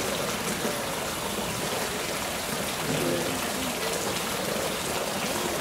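Steady rush of running water, with faint voices of onlookers in the background.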